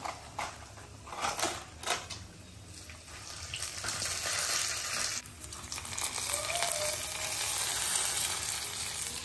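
A few knocks and clinks in the first two seconds, then a tempering of shallots, dried red chillies and curry leaves in hot oil sizzling steadily.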